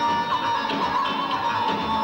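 Band playing folk music: a sustained melody line over a low bass pulse.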